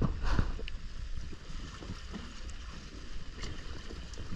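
Wind rumbling on the microphone over water sloshing around a small fishing boat, with a couple of small knocks in the first half second.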